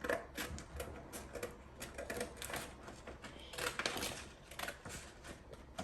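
Scissors cutting paper: a run of irregular short snips with some paper rustling.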